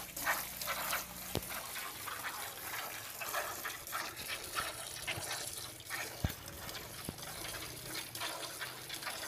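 Cow being milked by hand: repeated streams of milk squirting from the teats into a plastic bucket.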